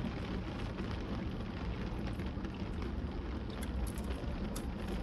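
Steady low hum and hiss inside a parked car, with light rain ticking on the roof and windows, a few sharper ticks near the end.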